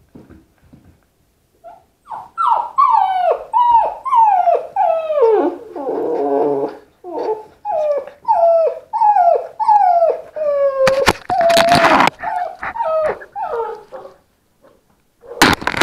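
Puppy whining: a steady run of high cries that each fall in pitch, about two a second. A loud burst of rough noise follows for about a second, around eleven seconds in, and again briefly near the end.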